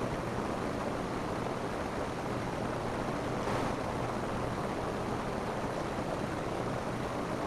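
Steady rain falling on a roof, an even, dense patter with a brief slightly brighter swell about three and a half seconds in.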